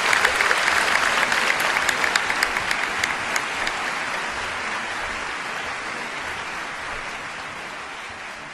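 Crowd applauding, many hands clapping, fading out gradually.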